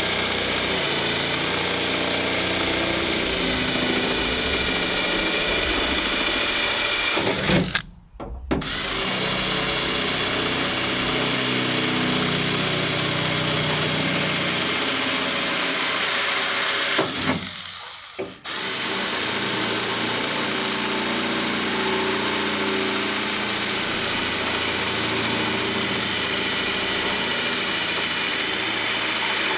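A 20V cordless drill runs steadily at full speed, boring a hole through a pickup truck's rear body panel. The motor stops briefly twice, about 8 and 18 seconds in, then starts up again.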